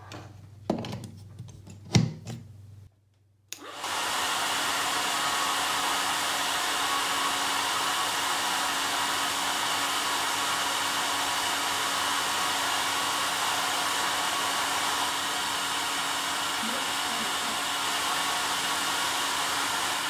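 A few clicks and a knock as a plug goes into a wall outlet. Then, after about three and a half seconds, a handheld hair dryer switches on and runs steadily: an even rush of air with a steady hum beneath it.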